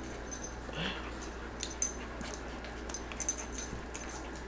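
Two poodles play-wrestling on a couch: one short dog cry rising in pitch about a second in, then scuffling and rustling with a run of sharp little clicks as they tussle on the cushions.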